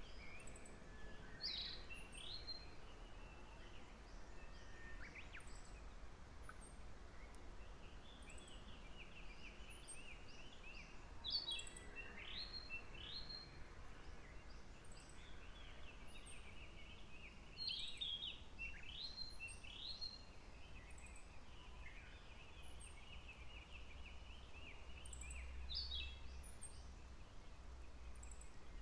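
Songbirds singing outdoors: a loud phrase of quick rising notes repeats every six to eight seconds, with softer twittering and faint high ticks in between, over a steady low rumble.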